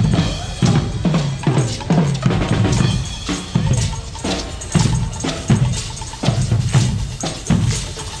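Marching parade drums, a bass drum and snare beating a steady march rhythm of about two beats a second.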